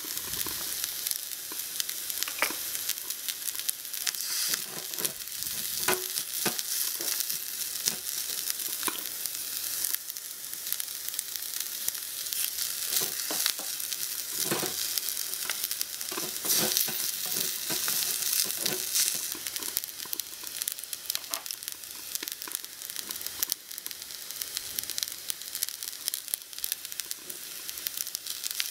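Stir-fry sizzling in a small metal wok on a miniature gas burner, with a wooden spatula scraping and knocking against the pan as the food is stirred and tossed.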